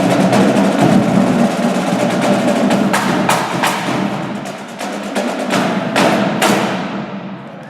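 Marching drum line (snares, tenor and bass drums) playing a fast, dense passage with rapid strikes and several loud accented hits, its level falling away near the end.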